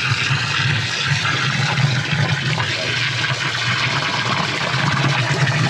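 Water from a garden hose splashing steadily into a flooded drain inspection chamber packed with toilet paper, soaking the blockage to break it up, with a steady low hum underneath.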